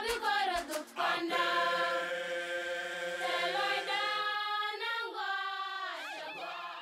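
Soundtrack music: a choir singing long held notes, with two low drum beats in the first second, fading slowly towards the end.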